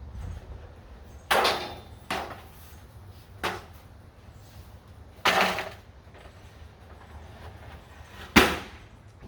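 Five irregular knocks and bangs, a second or more apart, with the loudest near the end.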